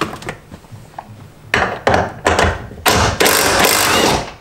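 Impact wrench running in three bursts, the last about a second and a half long, backing out the 16 mm bolts at the rear of a BMW E36 driver's seat rail.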